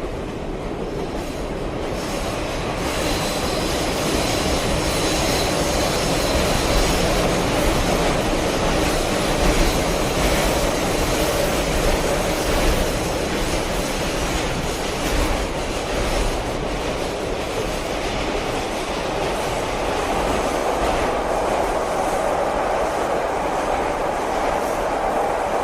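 Train running along the track: a steady loud rumble with clacking from the wheels. A thin high wheel squeal comes in about three seconds in and fades a few seconds later.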